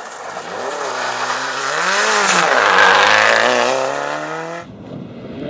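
A Subaru Impreza rally car's flat-four engine revving up and down through gear changes as it drives past on gravel, loudest about three seconds in. The sound cuts off suddenly near the end.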